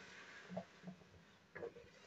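Faint plops and knocks, about three, as raw cut potato fries are tipped from a steel tray into a steel karahi of hot water. The loudest comes about one and a half seconds in.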